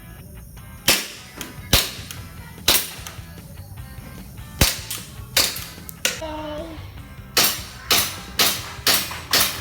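Air gun firing repeatedly: about ten sharp cracks, spaced unevenly at first and then coming about twice a second over the last few seconds.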